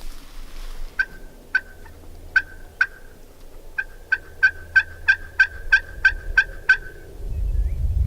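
Wild turkey calling: a run of short, sharp notes, four spaced ones and then, after a brief pause, about ten more at roughly three a second. A low rumble comes in near the end.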